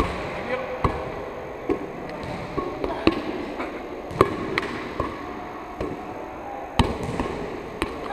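Hands slapping a large play ball as it is set back and forth around a seated circle, about eight sharp, irregularly spaced knocks, with the ball landing on the hall floor near the end. Low murmuring voices run underneath, with the echo of a large sports hall.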